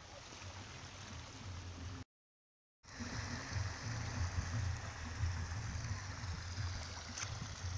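Wind buffeting the microphone: a steady low rumble with a rushing hiss over it, broken by a moment of dead silence about two seconds in.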